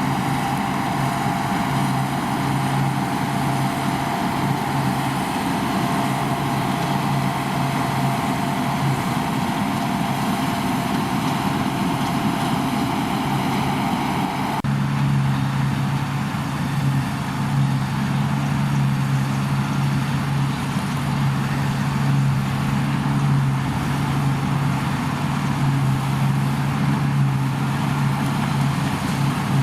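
Deutz-Fahr combine harvester's diesel engine running steadily at working revs. About halfway through, the sound shifts suddenly to a deeper, duller drone.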